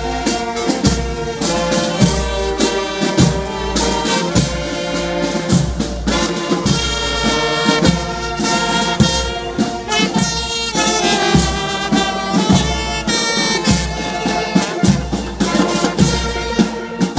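Brass band music: saxophones and trumpets playing over a steady drum beat.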